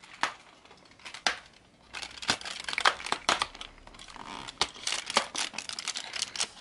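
Perforated cardboard door of a chocolate advent calendar being pressed in and torn open. A few separate clicks come first, then from about two seconds in a dense run of crackling and tearing.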